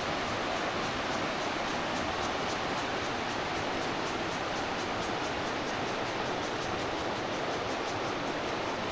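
Steady rushing noise of the kind running water makes, even throughout, with a faint fast ticking high above it, about three ticks a second.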